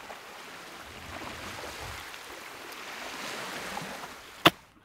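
Steady wash of small waves and wind on the shore, then about four and a half seconds in a single loud, sharp slap as a lump of wet clay mixed with dry grass is slammed down onto a flat rock.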